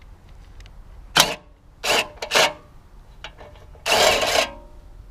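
Cordless impact driver with a socket on an extension bar, run in several short goes, the longest near the end, undoing the 10 mm bolts that hold a lawnmower engine's top cover.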